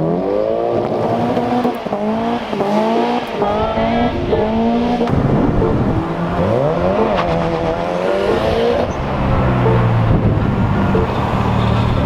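Car engine being revved hard. For the first few seconds it gives a rapid run of short rising revs. About halfway through comes one longer rise and fall, and near the end it settles into a steadier drone.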